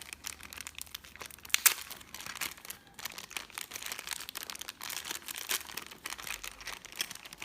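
Plastic blister packaging crinkling and crackling in the hands as a figure's base is worked free of it, with one sharp snap about one and a half seconds in.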